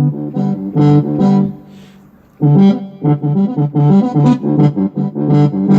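A keyboard workstation plays a banda-style sampled instrument patch in short rhythmic phrases, with a brief pause about two seconds in.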